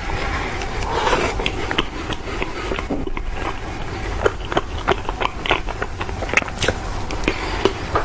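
Close-up chewing of a chocolate biscuit, with irregular wet smacks and sharp mouth clicks over a low steady hum.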